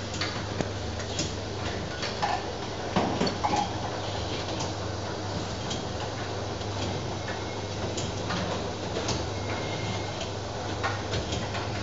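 Can water-bath inspection machine running: a steady low hum under a constant noisy background, with irregular clicks and knocks as the clamped cans move along the conveyor through the water, a cluster of louder knocks about three seconds in.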